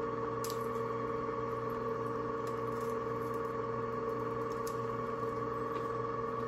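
Steady motor hum of an electric chocolate fountain running, with a few faint clicks.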